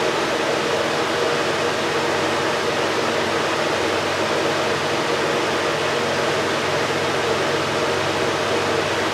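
Steady rushing background noise with a faint hum underneath; the enamel work with the pick makes no distinct sound.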